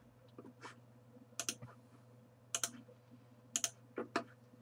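Computer mouse clicking, a press and release about once a second, several coming in quick pairs, over a faint steady electrical hum.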